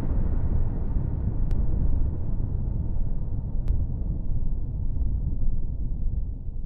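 Low rumble of an explosion sound effect dying away, its higher part fading out steadily. Two faint ticks come about one and a half and three and a half seconds in.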